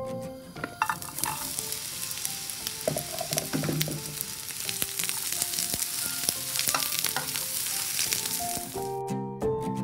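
Sliced red onions sizzling in a frying pan, stirred with a wooden spoon that clicks and scrapes against the pan. Music fades out about a second in and comes back near the end.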